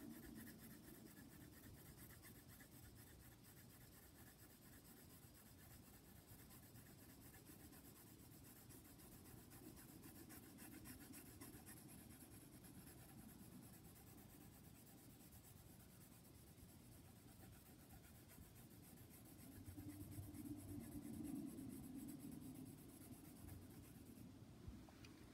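Faint scratching of a graphite pencil shading on sketchbook paper, in many quick repeated strokes.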